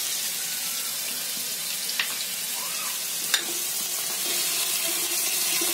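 Country chicken pieces sizzling steadily in hot oil in an iron kadhai, with two sharp clicks of a metal spatula against the pan as the chicken is stirred, a little under halfway through and again soon after.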